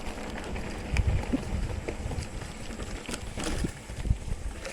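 Wind buffeting the microphone in gusts over a rough hiss, with scattered clicks and rattles, as a mountain bike rolls along a dirt trail.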